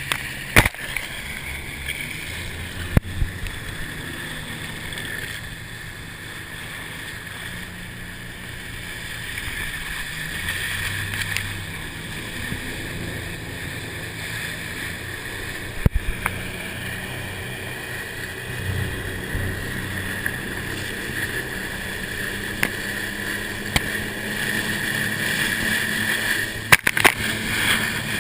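Motorboat running through rough, choppy inlet water, with a steady engine and water rush and a few sharp knocks, likely the hull slapping the chop.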